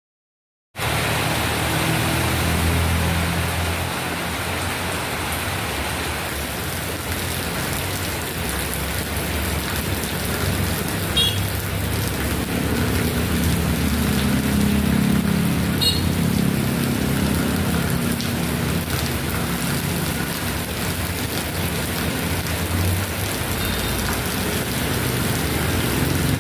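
Steady heavy rain falling on a wet road, with a low engine hum of vehicles underneath that swells and fades.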